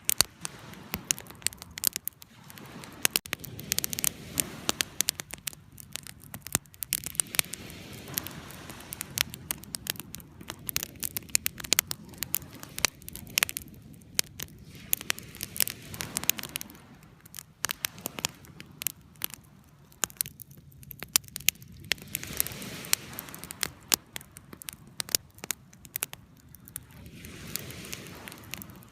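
Campfire crackling with frequent sharp pops, over the slow swell and fade of waves washing in.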